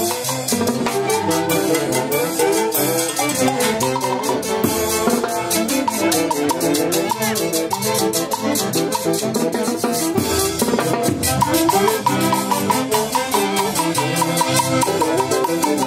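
Live Andean folk orchestra playing a dance tune: harp, violins, clarinets and trumpets over a snare drum and cymbal keeping a steady beat.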